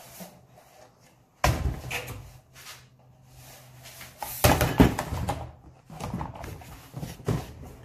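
Hollow plastic knocks and scrapes of a compost bin's plastic cone bumping against its cardboard box as it is handled. A sharp knock comes about a second and a half in, and the loudest cluster of bumps about four and a half seconds in.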